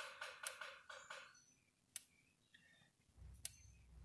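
Premier 1 Solar IntelliShock 120 electric fence energizer, just switched on, ticking faintly once with each pulse, about every second and a half. The clicks follow a brief faint chirping in the first second or so.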